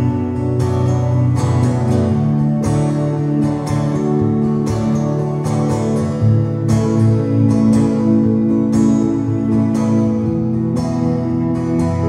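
Live music: an acoustic guitar strummed in a steady rhythm over sustained electric keyboard chords.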